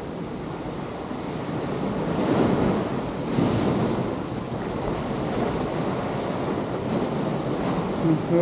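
Ocean waves breaking and washing in along the shore, with wind buffeting the microphone; the surge swells loudest about two to four seconds in.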